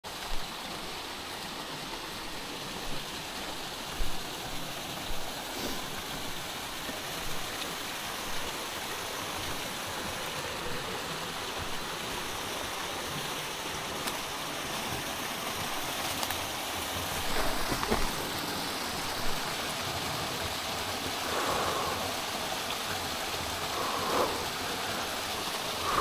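Shallow rocky mountain stream running steadily over stones and small cascades, with a few short soft thumps now and then.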